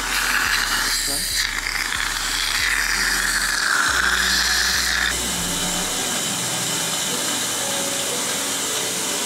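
Dental saliva ejector (suction tube) running in the mouth with a rushing hiss that cuts off about five seconds in. Background music with a bass line plays throughout.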